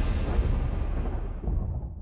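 Deep cinematic boom of a trailer sound-design hit, a low rumble dying away as its higher tones fade out first.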